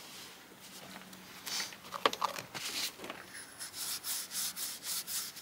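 Cloth rag rubbing the metal top piece of a Sealco air start valve clean, in quick even strokes about three a second from about three seconds in. A few sharp clicks come just before, about two seconds in.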